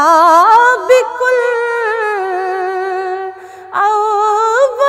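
A woman's voice singing a Urdu manqabat unaccompanied through a microphone, in long held, ornamented notes that waver and glide in pitch, with a short breath break about three and a half seconds in.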